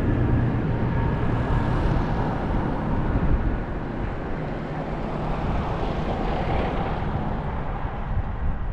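Farm tractors driving past on a road: diesel engines running and tyres humming in a steady rumble that eases slightly in the middle and builds again toward the end.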